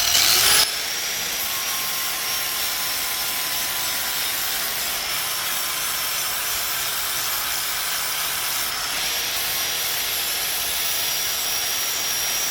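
Right-angle grinder with a sanding disc sharpening the edge of a steel lawnmower blade: the motor spins up with a rising whine at the start, then runs steadily with a high whine over a constant grinding hiss.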